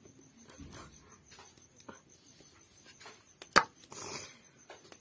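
Faint scraping and light tapping of a spoon placing vegetable filling onto a rolled momo wrapper on a stone rolling board, with one sharp knock about three and a half seconds in.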